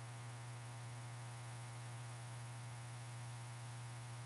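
A faint, steady low hum, unchanging throughout.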